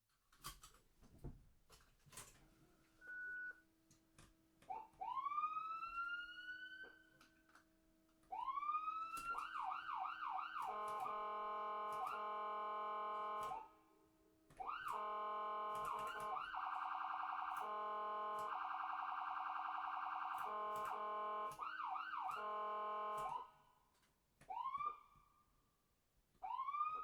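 Electronic ambulance siren running through its tones. It starts with rising whoop wind-ups, breaks into a fast yelp, then gives a long steady blaring tone and a rapid warble, and cuts off about 23 seconds in. Two short whoops follow near the end, with scattered clicks throughout.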